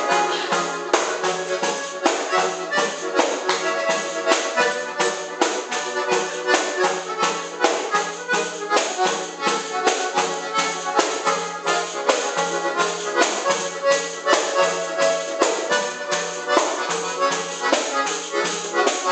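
Accordion playing a forró tune over a quick, steady percussion beat.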